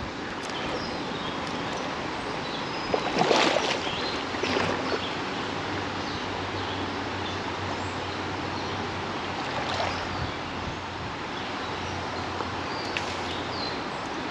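Creek water running steadily, with a few brief rustles and knocks about three to five seconds in.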